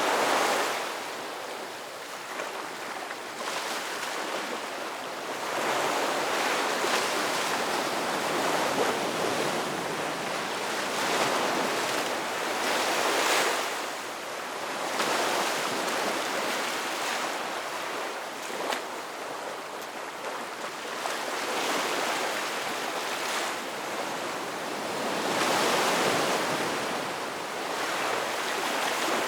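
Ocean surf breaking on a sandy beach: the waves wash in one after another every few seconds, each swelling to a rushing hiss and fading as it draws back.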